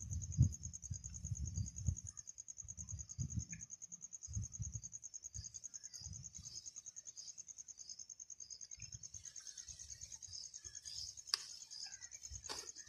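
An insect's steady, high-pitched trill, pulsing rapidly throughout. Low rumbles come through the first two seconds, and two sharp clicks sound near the end.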